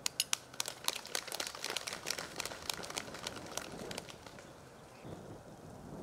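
A small group of people clapping: a spatter of uneven claps that starts abruptly, is loudest at first and dies away after about four seconds.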